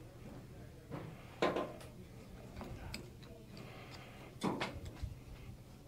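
Small clunks and scrapes of a screwdriver and loose parts being handled against a roller on a workbench, with two louder ones about a second and a half in and about four and a half seconds in, over a low steady hum.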